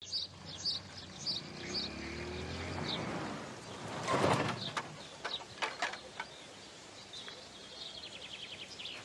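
Small birds chirping in repeated short high notes, with a fast trill near the end. A brief noisy swell comes about four seconds in, followed by a few sharp clicks.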